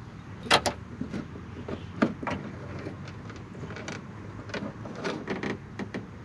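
Irregular clicks and knocks of hand work on a car bumper while quick-release hardware is fitted, with two sharper knocks about half a second and two seconds in.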